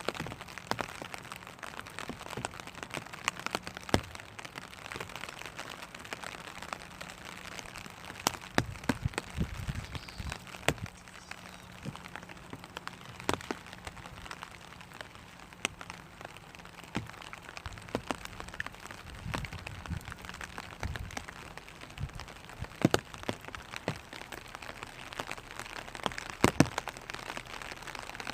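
Light rain falling on a clear vinyl umbrella: a soft steady rain hiss with irregular sharp taps of single drops hitting the plastic canopy.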